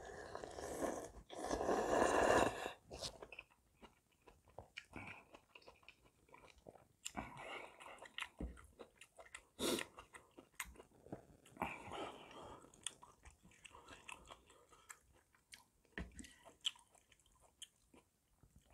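Close-up mouth sounds of a person eating spicy gopchang hot pot. It opens with a loud slurp as a spoonful of noodles and cabbage is drawn in, which is the loudest part. After that come chewing and many short wet clicks and smacks.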